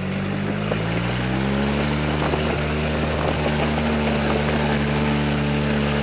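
Gas engine of an E-Z-GO golf cart under throttle. It speeds up over the first second or so, then runs at a steady, higher pitch while the cart drives along a dirt trail.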